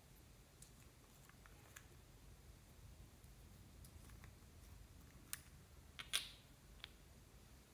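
Small plastic screw caps being twisted off a twin-well plastic case, with light handling clicks and three sharper plastic clicks in the second half, the loudest about six seconds in. Otherwise near silence.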